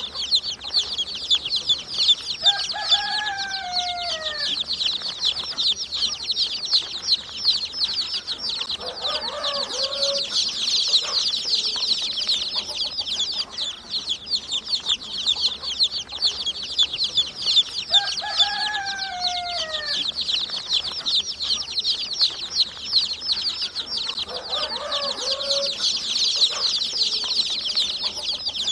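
A brood of baby chicks peeping together in a dense, continuous chorus of short high chirps. Twice, a lower call with a falling pitch stands out from the chorus, and each time a fainter low call follows a few seconds later.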